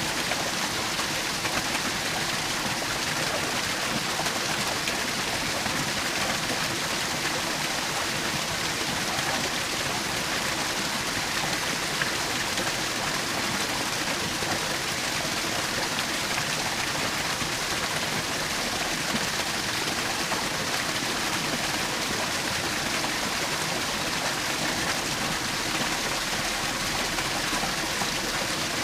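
A small forest waterfall splashing and rushing, a steady, even sound of falling water.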